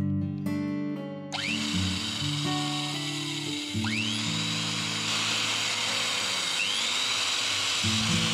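Hand-held electric drill boring into a steel knife blank clamped in a vise, starting about a second in, its whine sweeping up in pitch twice. Acoustic guitar music plays along with it.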